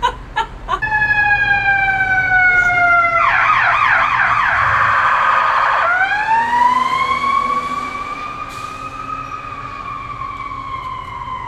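Emergency vehicle siren: a slow falling wail, then a fast yelp for about three seconds, then a wail that rises and slowly falls away.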